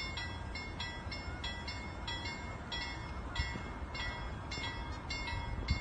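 Level-crossing warning bell ringing over and over, about one and a half rings a second, with a steady low rumble underneath.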